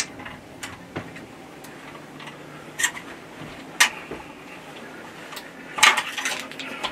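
Scattered sharp clicks and light knocks, with louder ones about three and four seconds in and a short cluster near the end.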